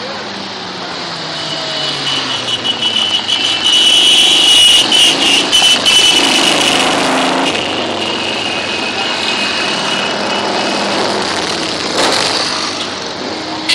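Cruiser motorcycles riding past one after another, their engines loudest as a pair goes by close about halfway through, then a motorcycle with sidecar passes near the end. A high steady tone runs through the middle.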